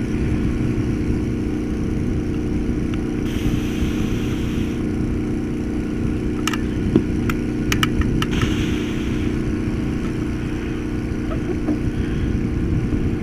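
A steady motor hum throughout, with a run of sharp clicks from a caulking gun being worked to squeeze silicone, about halfway through, and two short spells of hiss.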